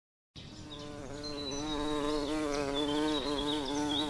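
A bee buzzing close by, a steady droning hum that wavers slightly in pitch, starting about a third of a second in and swelling up, with faint high chirps above it.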